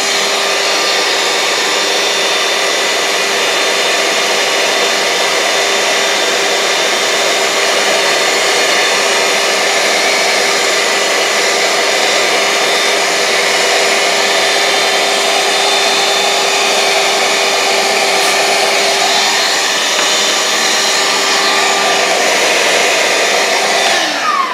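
Handheld vacuum running steadily with a steady whine while cleaning coffee grounds out of an espresso grinder's burr chamber. Near the end it is switched off and the motor winds down in a falling whine.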